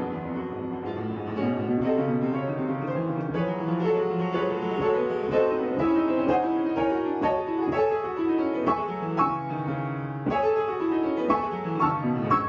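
Upright piano being played: a flowing passage of many notes, with quick runs sweeping down and then up the keyboard in the second half.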